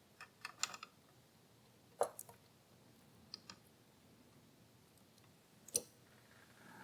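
Faint clicks and light knocks from an impact sprinkler being handled: a quick cluster in the first second, then single clicks about two, three and a half, and six seconds in.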